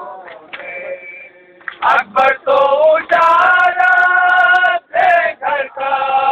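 A group of men chanting a Muharram nauha (lament) together. The voices are quieter at first, then come in loud with long held sung lines about two seconds in, breaking briefly for breath near the end.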